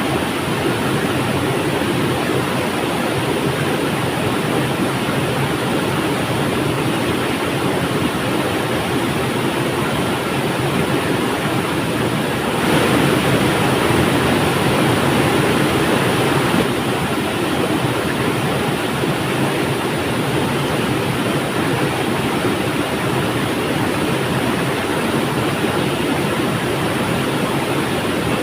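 River water flowing, a steady rushing that rises slightly for about four seconds around the middle.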